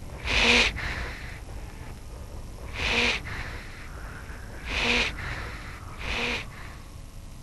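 Harp seal giving four short, breathy calls, spaced about one and a half to two seconds apart, the first the loudest.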